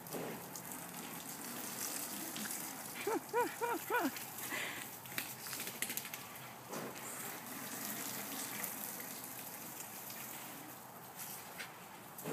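Lawn sprinkler spraying water, a steady hiss. About three seconds in, three short rising-and-falling pitched calls are heard over it.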